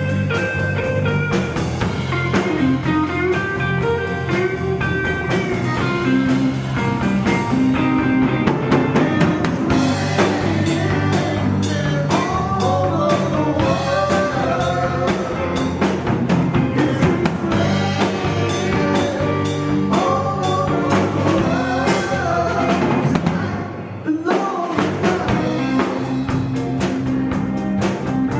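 Live band playing a blues-rock song: electric guitar lead over bass and drum kit, with a brief break near the end before the band comes back in.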